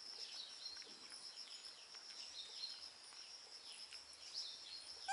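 Outdoor ambience of a steady, high, pulsing insect trill with scattered short falling bird chirps over it.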